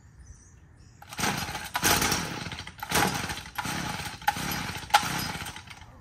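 Gas string trimmer being pull-started on choke: the starter cord is yanked about five times, roughly a second apart, and the engine turns over with each pull without catching and running.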